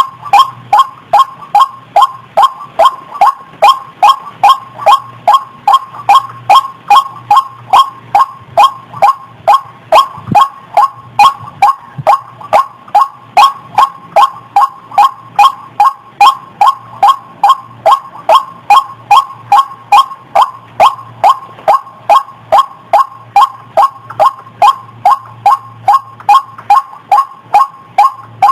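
White-breasted waterhen (ruak-ruak) calls played as a bird-trapping lure: the same short note repeated in a fast, even run, about two and a half calls a second, without a break.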